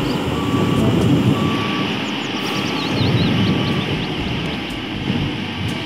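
Engine of a single-drum road roller running steadily under way, with a short beep repeating about once a second.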